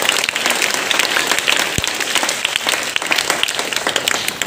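Audience of students clapping, a steady round of applause with many overlapping hand claps.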